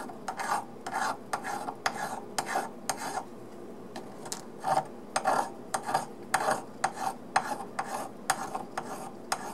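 A small flat file rasps in quick, light strokes along the edge of a die-cast metal locomotive frame, taking off casting flash. The strokes stop briefly about a third of the way in, then carry on.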